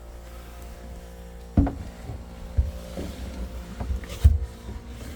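A few dull knocks and clunks of tools and parts being handled, the loudest about a second and a half in, over a steady low hum.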